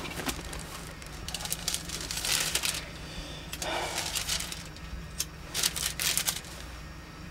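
Intermittent rustling and clicking in several short bursts, over a steady low electrical hum.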